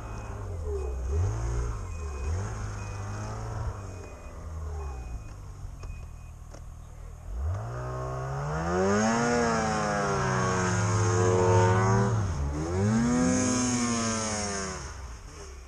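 Snowmobile engine idling unevenly, with a faint beep repeating about twice a second for the first six seconds. About halfway through, an engine revs up hard, holds high, dips briefly and revs again before dropping back.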